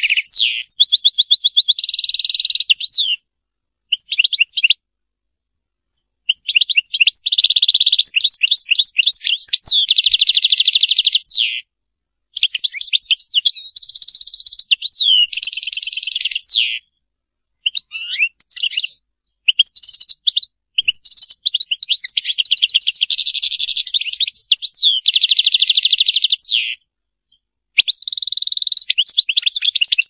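European goldfinch singing in the Serfati style: phrases of rapid twittering trills, buzzy notes and quick sweeping whistles, each a few seconds long, broken by several short pauses.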